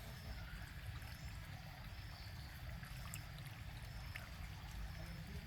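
Small garden-pond waterfall trickling and splashing steadily over rocks into the pond, with a steady low rumble underneath.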